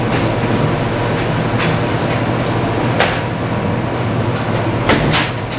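Steady low mechanical hum of a ship's crew laundry room's machinery, with a few sharp clicks and knocks spaced through it; the loudest pair comes near the end.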